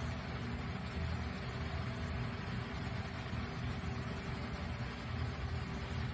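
Steady low rumble and hiss of a motor running in the background, unchanging throughout.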